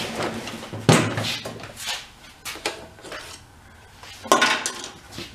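Knocks, clunks and scraping as a walk-behind lawn mower is handled and tipped onto its side on a workbench, with light metal clatter; a sharp knock about a second in and a louder scraping clatter near the end.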